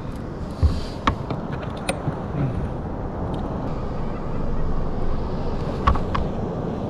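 Steady wind and water noise around a plastic sit-on-top kayak at sea, with a few sharp knocks of gear being handled against the hull: three in the first two seconds and one more near the end.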